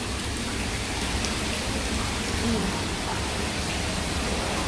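Hot water running steadily from a mixing tap, a constant rushing splash.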